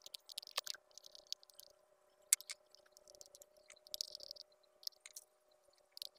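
Handling noise of a homemade diving mask's rubber inner-tube lining and plastic parts: short rubbing, squeaky scrapes and a few sharp clicks, the loudest click about two seconds in, over a faint steady hum.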